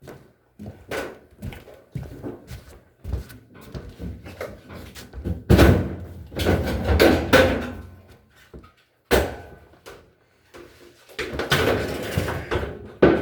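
Irregular knocks, bangs and clatter from a washing machine and its parts being handled, with a loud run of banging about halfway through, a sharp bang a little later and more clatter near the end.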